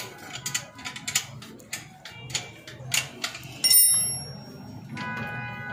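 Metal clicks and taps of a spanner working the 12 mm lower mounting bolt of a motorcycle silencer, then a single clang with high ringing as the steel spanner is set down on the concrete floor. Background music starts near the end.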